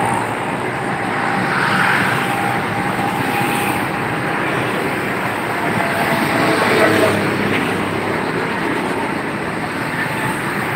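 Steady road-traffic noise inside a road underpass, a continuous rush of passing vehicles that swells a little now and then.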